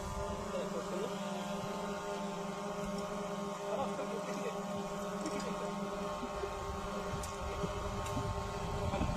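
A motor runs steadily with an even hum; its lowest tone drops away about six seconds in. Faint voices come and go over it.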